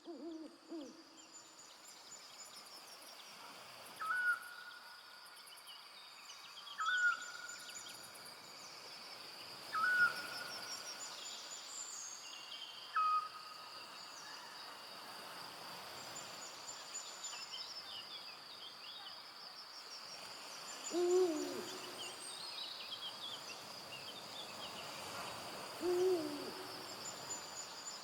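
Forest evening ambience with an owl hooting: two low hoots with falling pitch near the end. Earlier, a bird gives four short whistled notes about three seconds apart, with scattered high chirps over a steady high-pitched drone.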